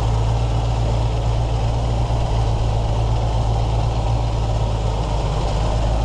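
A 1994 Land Rover Defender's V8 idling steadily on a freshly fitted Magnaflow exhaust and new manifold gaskets, heard from the open engine bay during a leak check. No exhaust leak is felt at the manifolds.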